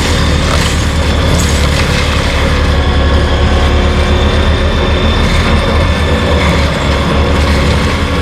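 Tracked skid steer with a forestry stump grinder/mulcher attachment running steadily: a constant low engine hum under a rough mechanical clatter.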